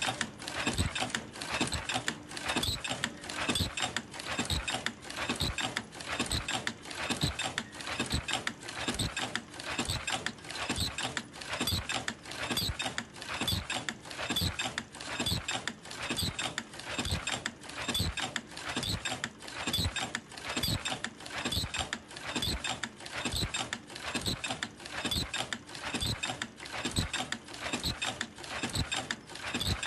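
Senfeng FLK120 automatic face mask making machine running, its pneumatic cylinders and ear-loop attaching station clacking in a fast, even rhythm over a faint steady hum.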